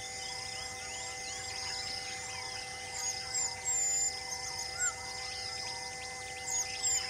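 Birds chirping over and over in a forest, with louder whistled calls from about three seconds in and again near the end, over a steady droning hum.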